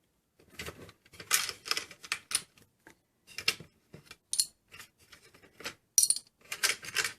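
Toy coins and plastic parts of a toy cash register clattering and clicking as change is handled in the open till drawer: a string of irregular short clicks and rattles.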